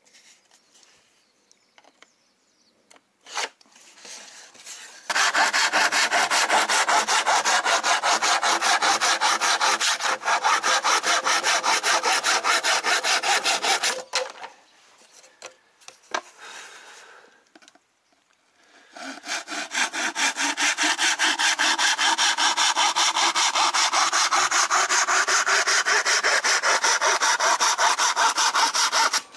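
A narrow hand saw cutting through a thin plywood sheet with rapid, even back-and-forth strokes, in two long bouts with a pause of a few seconds between them.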